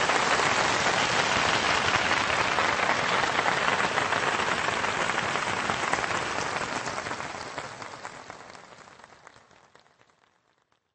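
A steady crackling, hissing noise that fades out gradually over the last several seconds to silence.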